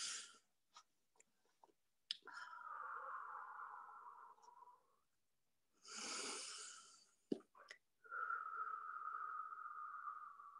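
A woman's breathing, faint: one audible breath at the start and another about six seconds in. Between them are long, faint, steady tones, the second one gliding slightly lower.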